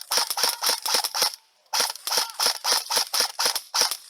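Airsoft gun firing a rapid string of shots, about five a second, with a short pause about a second and a half in.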